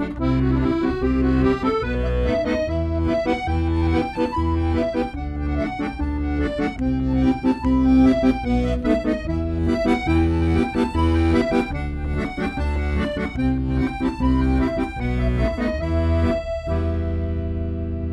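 Zupan Tyrolean 96-bass piano accordion playing a tune: a melody on the right-hand keys over an alternating bass-note-and-chord accompaniment from the left-hand buttons. Near the end it settles on a held chord.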